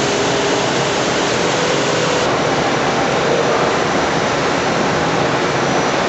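Centerless grinder running, giving a loud, steady rushing noise with a few faint tones underneath.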